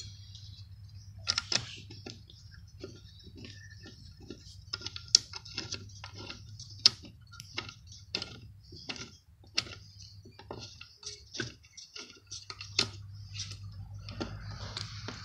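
Irregular light metal clicks and taps as a Husqvarna 150BT backpack blower's muffler, gasket and mounting bolts are handled and fitted against the engine by hand, over a faint steady low hum.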